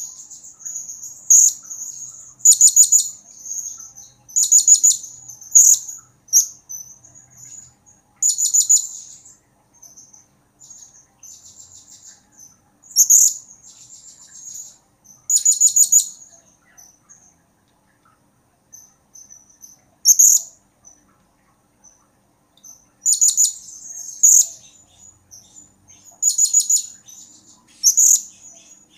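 Blue-crowned hanging parrot (serindit) calling: shrill, very high chirps and short rapid trills in bursts every second or two, with softer single chirps between and a few brief pauses. The bird is in full song (gacor), the kind of calling keepers play as a lure to set other serindit answering.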